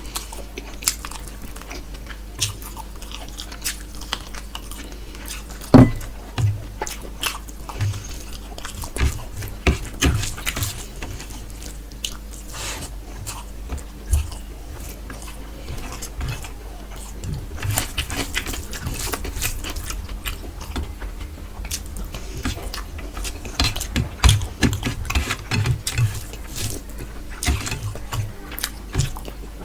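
Close-miked chewing and eating of chicken bhuna with rice and fried egg: irregular wet mouth clicks and smacks with some crunching, one sharp click about six seconds in.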